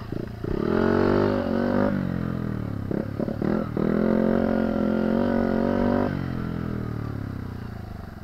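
Dirt bike engine revving as it is ridden along a trail: the throttle opens about half a second in, eases near two seconds, opens again near four seconds, then is let off about six seconds in and the engine note falls away.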